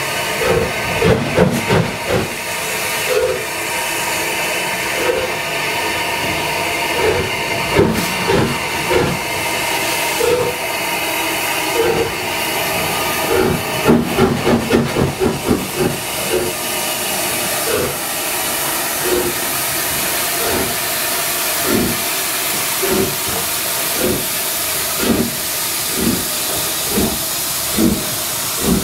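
Steam locomotive with a steady hiss of steam and short chuffs at uneven intervals about a second apart, bunching into a quick run about halfway through.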